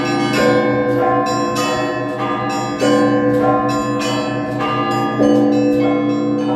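Russian Orthodox festive Easter bell ringing (zvon) by a single bell ringer. A heavy bell is struck about every two and a half seconds under quick, overlapping strikes of smaller bells, and all of them ring on together.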